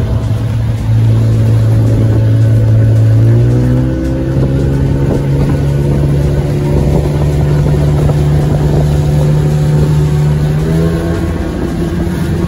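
Small speedboat's motor running under way, with water rushing past the hull. The motor's hum steps up in pitch about four seconds in and again near the end.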